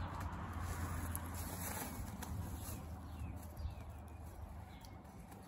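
Outdoor background with a steady low rumble and faint bird calls, plus soft rustling and light clicks from hands setting a bedding plant into compost.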